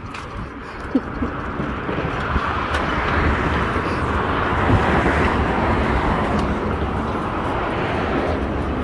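Noise of a passing vehicle swelling to a peak around the middle and easing off again, over steady road-side rumble, with a short knock about a second in.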